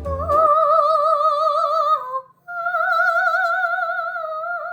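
A woman singing in a mock-operatic style: two long, high held notes with a wide vibrato, the second a little higher, with a short break between them.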